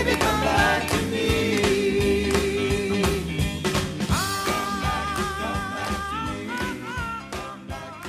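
Doo-wop vocal group song with long held sung notes over a steady beat, fading out.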